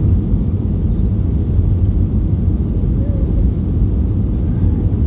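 Steady cabin noise inside an Airbus A320-214 in flight: the CFM56 jet engines and the airflow over the fuselage make an even, low rumble with a thinner hiss above it.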